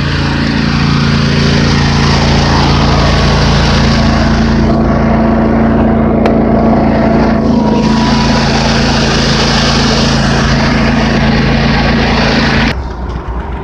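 A small engine running steadily and loud, close to the microphone, its pitch stepping up slightly about four seconds in; it cuts off abruptly near the end.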